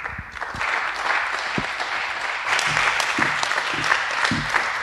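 Audience applauding, breaking out suddenly and clapping steadily.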